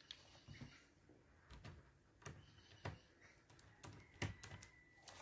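Faint, scattered plastic clicks and snaps, about eight, as a laptop's plastic screen bezel is pried loose with a small screwdriver and fingertips.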